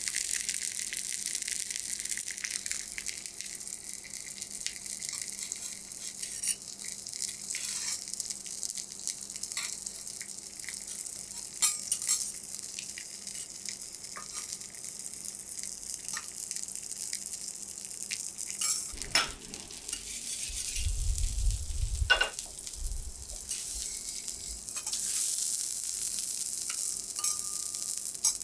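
Hot steel teppanyaki griddle sizzling steadily, with metal spatulas clicking and scraping against the plate and a few dull knocks about two-thirds through. Near the end the spatulas scrape the griddle and the sizzle grows louder.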